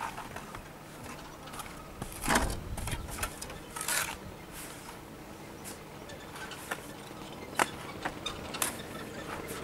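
Shovels scraping and knocking in damp sand and concrete mix while concrete blocks are filled by hand in a mould: irregular scrapes and clinks, with the loudest strikes about two, four and seven and a half seconds in.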